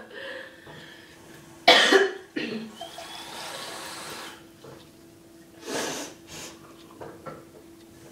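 A person coughing, their throat burning from a mouthful of ground ginger: a sharp cough just under two seconds in with a smaller one right after, then another pair of coughs around six seconds.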